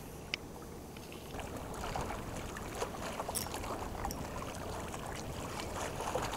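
Wind and small waves lapping against a rocky bank, with one sharp click about a third of a second in and faint irregular clicking from about a second and a half on.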